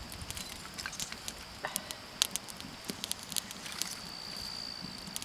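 Small tinder-bundle fire crackling with irregular sharp snaps as it burns. Small sticks are being picked up and laid onto it.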